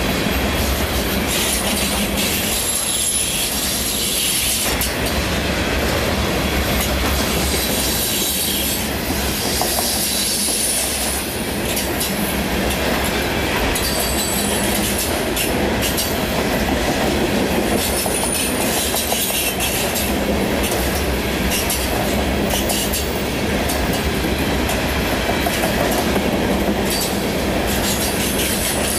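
Loaded coal hopper cars rolling past: steady wheel-on-rail rumble with rapid clicking over the rail joints and intermittent high-pitched wheel squeal.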